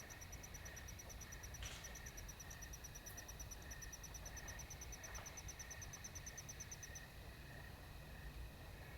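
A night insect chirping: a high-pitched, even run of rapid pulses, about nine a second, that stops about seven seconds in. A fainter, lower pulsing of other insects goes on beneath it, with a brief soft rustle near the two-second mark.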